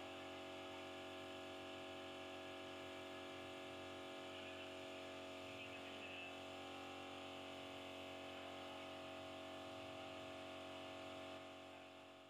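Air compressor and paint spray gun running steadily: a constant hum with a faint hiss as epoxy paint is sprayed, fading out near the end.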